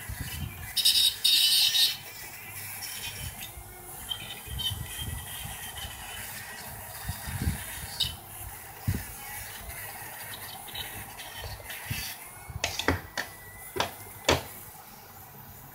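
Metal parts of an opened electric bike horn being handled: scrapes, rattles and light knocks. A short, harsh, high-pitched burst comes about a second in, and a few sharp clicks come near the end.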